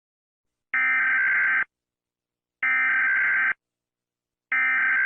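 Emergency Alert System header tones: three harsh, buzzing digital data bursts of just under a second each, evenly spaced, the coded header that opens a new alert broadcast.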